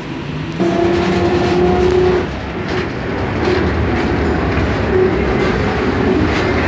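Ride noise inside a Škoda 15Tr03/6 trolleybus on the move: continuous rumbling and rattling of the body. A steady hum comes in sharply about half a second in and fades after about two seconds.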